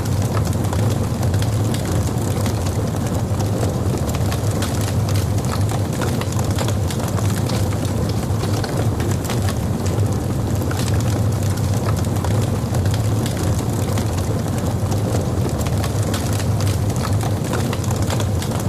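Logs burning in a fireplace: a steady low rumble of the flames with frequent small, sharp crackles and pops from the burning wood.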